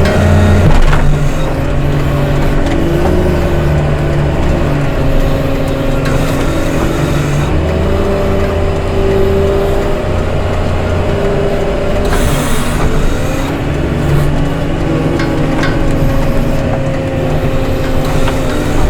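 Diesel engine of a snow-clearing machine running under load, its pitch rising and falling, with a short hiss about twelve seconds in.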